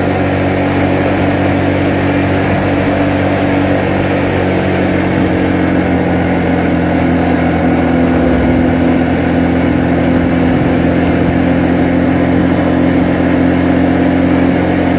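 Motorcycle engine running at a steady cruising speed while being ridden, a steady hum over road and wind noise, its pitch shifting slightly about five seconds in.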